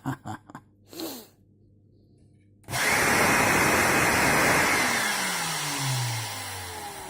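A few handling clicks, then about two and a half seconds in the motor of a Bosch GAS 18V-LI cordless vacuum cleaner starts abruptly and runs loud, with its electronics board removed and bypassed. About halfway through it is switched off and spins down, its whine falling steadily in pitch as it fades.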